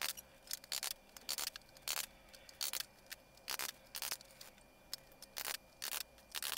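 Short scraping strokes, irregular at about one or two a second, as lozine (vulcanised fibre) corner trim, stuck on with neoprene leather glue, is pressed and rubbed down along the edges of an old trunk's lid.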